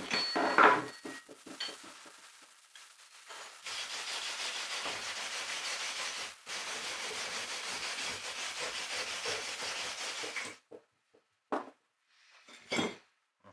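A South Coast No. 5 bronze sheet winch being taken apart. Metal clinks at the start, then about seven seconds of steady scraping with a short break partway, as a flat blade works inside the drum. Two sharp knocks near the end.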